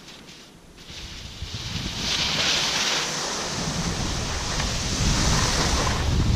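Skis sliding and scraping sideways over packed snow in a steady hiss that builds about a second in, with wind buffeting the microphone.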